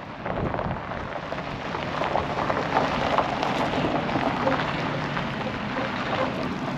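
Footsteps crunching on a gravel driveway: a continuous crackling noise.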